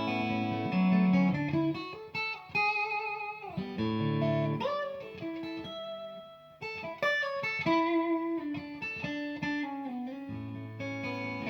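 Fender Stratocaster electric guitar played through a Victory V40 amplifier. It moves from a held chord into single-note lines and chords, with vibrato and a string bend about four and a half seconds in, and closes on a sustained low chord.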